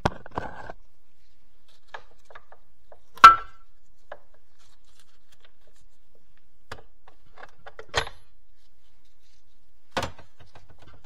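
Occasional metal knocks and clicks from handling the parts of a Getrag HM290 manual transmission on the bench. One loud metallic clank with a brief ring comes about three seconds in, and two smaller knocks follow later.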